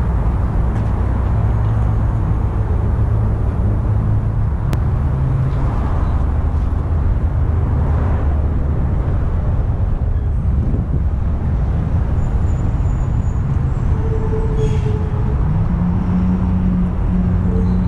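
Freightliner M2 truck's Mercedes MBE900 diesel engine idling with a low, steady sound that holds level throughout.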